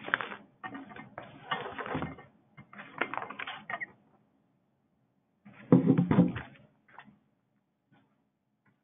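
Clicking and clattering handling noise over a narrow-band call line, in bursts through the first few seconds and once more about six seconds in.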